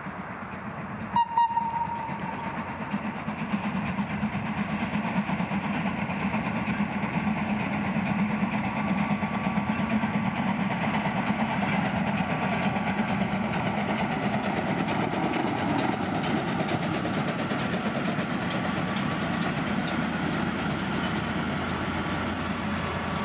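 Steam locomotive FS Gr 625 sounds one short whistle blast about a second in. Its running noise then grows louder as it approaches and passes, followed by the wheels of its old wooden-bodied carriages rolling over the rails.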